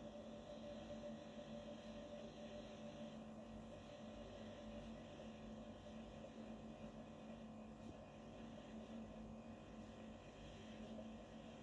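Faint steady hum over a low background hiss, with no distinct events.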